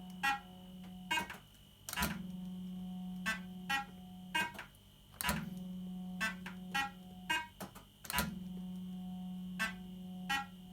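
1980s JPM Nudge Double Up fruit machine being played: three spins, each starting with a click and followed by a steady hum for about three seconds, with short clicks and electronic bleeps in between as the reels stop and the machine plays its sounds.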